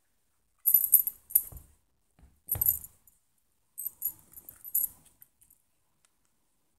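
Small bell on a cloth cat toy jingling in several short, bright bursts as a kitten bats and grabs at the toy.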